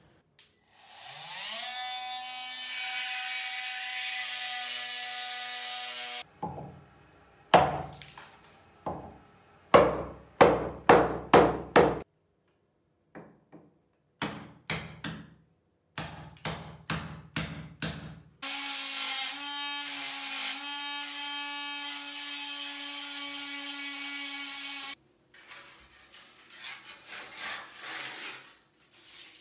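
A cordless angle grinder spins up and runs with a steady whine, then a cold chisel is struck with a club hammer many times in quick runs, chipping brick. The grinder runs again, and near the end a hand saw rasps back and forth.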